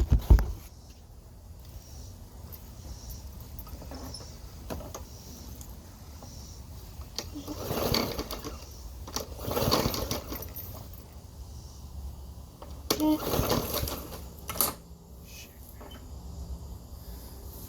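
Walk-behind lawn mower engine cranked by its pull cord three times, turning over for about a second each time without catching: the mower won't start.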